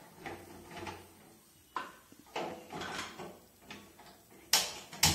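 Kitchen utensils scraping and knocking: a few short scrapes, then two sharp clanks about half a second apart near the end.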